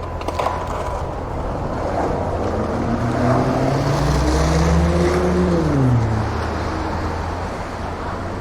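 Bus engine rumbling, then revving up with a rising pitch for a few seconds before dropping quickly about two-thirds of the way in. A short knock sounds right at the start.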